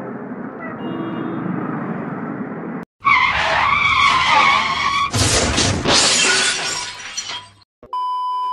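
Motorcycle riding and traffic noise, then a dubbed-in crash sound effect: a tyre screech followed by breaking glass. Near the end a steady high test-card beep sounds.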